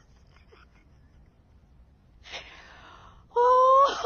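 A man's sharp, breathy intake of breath about two seconds in, then a loud, high, drawn-out vocal sound near the end as he breaks into laughter.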